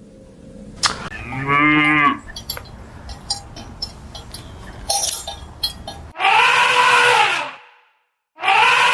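Cow mooing: a shorter call about a second in, then two long, loud moos, the second starting near the end.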